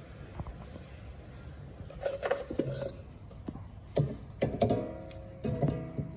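Steel pliers clinking and scraping against a coiled extension spring as the downward tension spring of a Snapper walk-behind mower's drive system is worked off its cradle. A few scattered clicks and scrapes, busier about four seconds in, with a brief squeal around five seconds.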